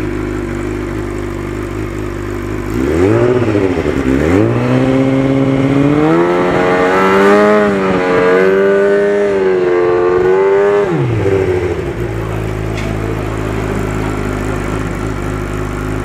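Race superbike engine at idle, blipped once, then revved up and held at raised revs with small wavers for about six seconds before dropping back to idle: a scrutineering exhaust noise test, the sound-level meter reading at a set rpm.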